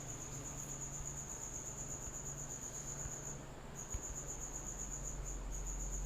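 A cricket trilling steadily in a high, rapidly pulsing tone, breaking off briefly a little past halfway, over a low electrical hum. A single click sounds about four seconds in.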